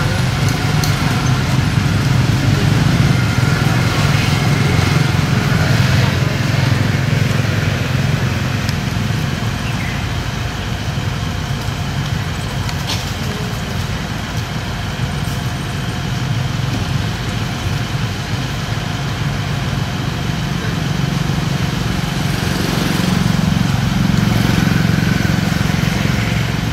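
A motor vehicle engine running steadily, a continuous low hum that swells slightly and eases again without stopping.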